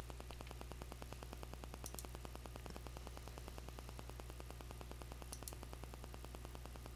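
Faint steady electrical hum with a fast, even buzz of static from the recording setup, and a couple of faint clicks about two seconds in and again near five and a half seconds.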